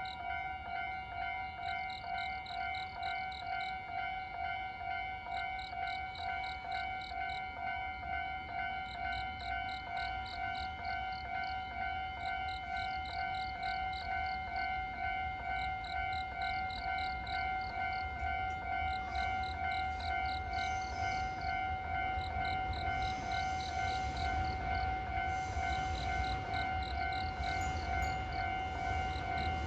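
Japanese level-crossing warning bell ringing in a steady, evenly repeated clang. A low rumble builds up in the last third, as a train draws near.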